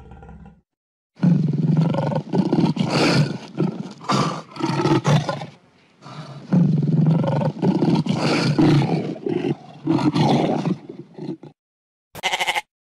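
Lion roaring in two long bouts of deep, rough, pulsed calls, one after the other. A short goat bleat near the end.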